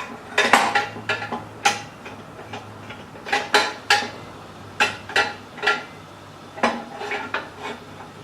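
Irregular metallic clanks and clinks, each with a short ring, as steel bars and tools are handled and set on a manual motorcycle tire changer.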